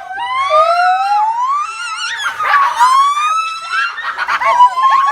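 Long, slowly rising whooping hoots, several overlapping and following one another, siren-like in their upward glide.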